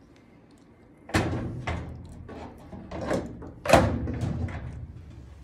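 A steel cabinet drawer clanking and scraping against its ball-bearing slides as it is set onto the track tabs. The metal knocks start about a second in and come irregularly, the loudest a little before four seconds in.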